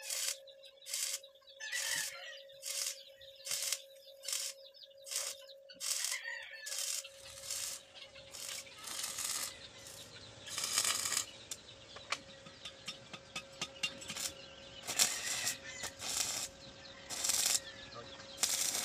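Stick (arc) welding on a steel can: the electrode arc crackles in sharp, evenly spaced bursts at first, then runs more continuously with longer crackling stretches. A steady hum sits underneath.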